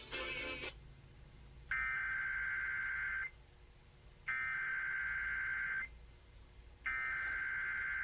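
EAS (SAME) digital header: three bursts of buzzing, warbling data tones, each about a second and a half long with about a second between them. It marks the start of a new emergency alert, here a NOAA Weather Radio severe thunderstorm watch.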